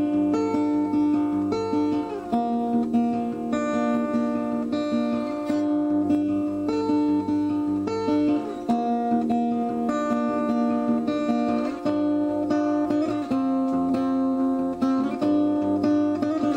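Acoustic guitar music, played with strumming, with held chords changing every second or two.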